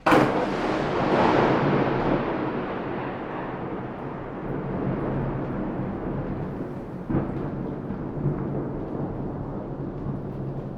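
A sudden thunderclap that rolls into a rumble fading over a few seconds, with steady rain hissing underneath. A second, shorter crack of thunder about seven seconds in.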